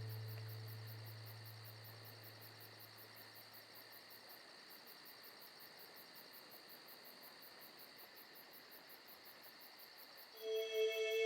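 Faint insects chirring in an even, high pulsing rhythm, as a low music note fades out over the first few seconds. Music with keyboard notes comes in loudly near the end.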